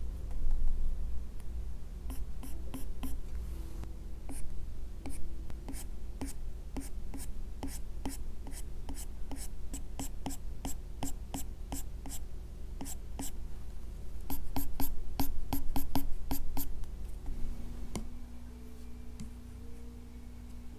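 Apple Pencil's bare plastic nib tapping and scratching across an iPad Pro screen covered with a paper-texture film, in quick short drawing strokes. A faster run of strokes comes about three-quarters of the way through.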